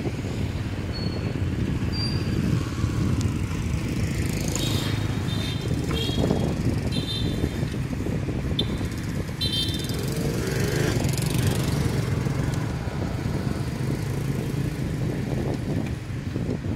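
Steady low rumble of street traffic and wind heard from a pedal cyclo moving along a city street. Between about four and ten seconds in there is a run of short, high-pitched chirps.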